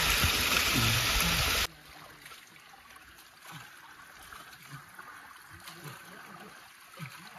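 Running water: loud and rushing for the first second and a half, then cut off suddenly, leaving a faint trickling stream with small gurgles.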